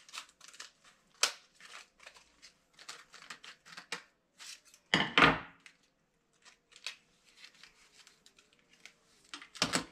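Tools and packaging being handled on a workbench: a run of light clicks, clinks and rustles, with a louder knock about five seconds in and another near the end.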